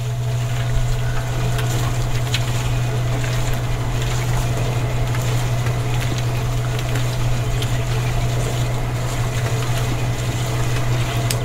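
Small electric motor of a homemade miniature concrete mixer running steadily with a low hum, turning its can drum of wet concrete mix.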